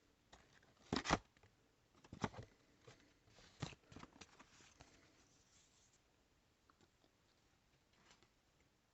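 Boker Kalashnikov XXL Desert Warrior automatic knife blade cutting through a material in a few short tearing strokes, the loudest about a second in, followed by a softer drawn-out slicing.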